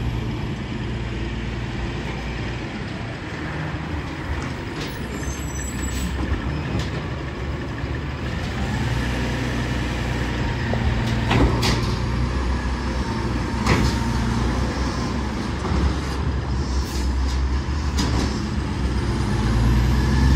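Diesel garbage truck engine running with a steady low drone that grows a little stronger about halfway through, with a few sharp clanks scattered over it.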